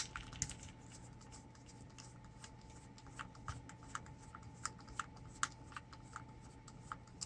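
Small irregular clicks and taps of plastic and metal parts being handled while a power cord's plug is taken apart, over a faint steady hum.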